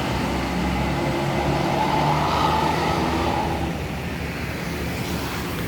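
Diesel tour bus engine running steadily. It is a little louder for the first three and a half seconds, then eases off.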